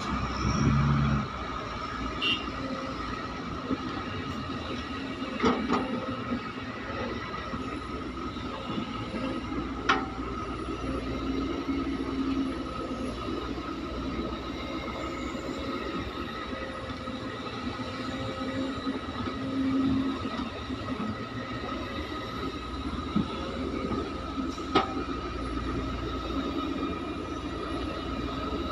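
CASE excavator's diesel engine running steadily under working load, with a constant high whine over the rumble. A few sharp knocks break through, the loudest about 25 seconds in.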